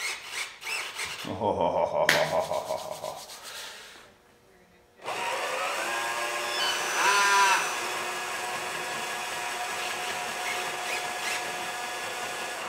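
Small electric RC outboard motor spinning its propeller in the air as a bench test: a short whir, a pause, then it spins up again with a rising whine, swells briefly, and runs steadily until it cuts off.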